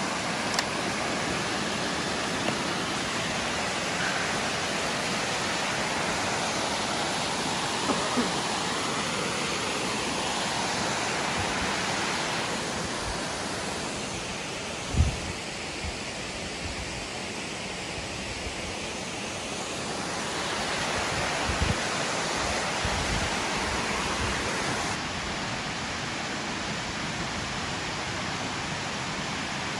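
Waterfall sliding down a broad sloping rock face: a steady rush of water that softens a little for a few seconds in the middle. A single low thump comes about halfway through.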